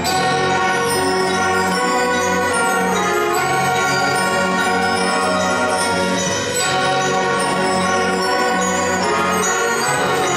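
Middle school concert band playing in full: woodwinds and brass holding chords, with ringing mallet percussion among them.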